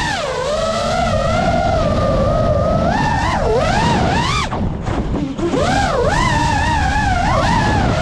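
FPV quadcopter's brushless motors whining, the pitch sliding up and down with the throttle over a rough rush of prop wash. About four and a half seconds in the whine drops and thins out for a moment as the throttle is cut, then climbs back.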